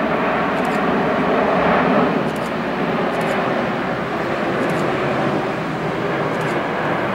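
Airbus A380 on landing approach with its gear down, the jet noise of its four Engine Alliance GP7200 turbofans passing overhead: a steady rushing rumble with a faint hum in it, loudest about two seconds in and then easing slightly as it moves away.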